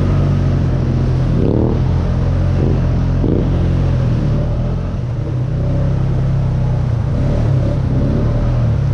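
ATV engine running and revving, its pitch rising and falling in several quick revs over a steady low drone, with a brief drop in level about five seconds in.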